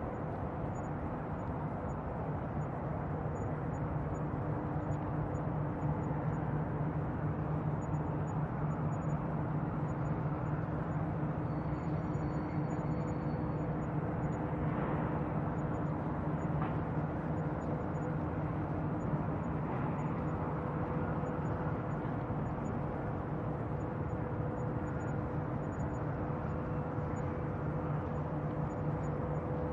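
Bayside ambience: a steady low engine hum over an even wash of background noise.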